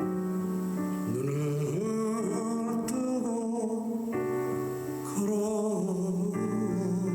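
A man singing a song over instrumental accompaniment, his voice coming in about a second in.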